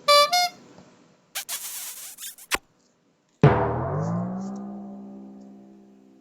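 A sequence of cartoon sound effects. It opens with two quick pitched notes, the second a little higher, followed by a few short hissing whooshes. Then comes a loud hit, timpani-like, whose ringing tone drops in pitch and fades away over about three seconds.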